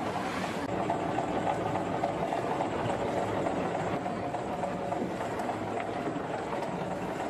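Fishing boat's engine running steadily: a dense, even rumble with a few steady hum tones.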